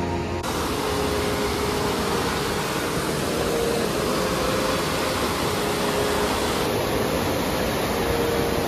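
Mountain river rushing over rapids, a steady, even rush of water noise that comes in suddenly about half a second in.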